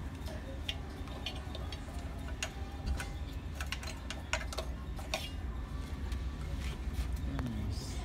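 Scattered, irregular light clicks and ticks from an Epson L3150 ink-tank printer's mechanism at work, over a low steady hum.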